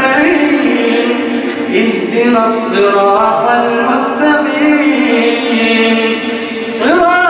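A man's voice reciting the Quran in melodic tajweed style into a microphone: long, ornamented, sung phrases with no accompaniment, and a new phrase opening on a rising note near the end.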